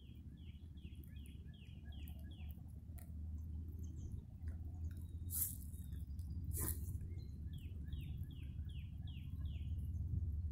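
A songbird singing two runs of quick down-slurred whistles, about four a second, once at the start and again near the end. Under the song runs a low steady rumble that grows slowly louder.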